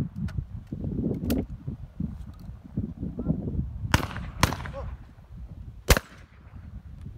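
Shotgun shots on a trap range: a sharp report about a second in, two close together about four seconds in, and the loudest one just before six seconds, each with a short echoing tail, over a low rumble.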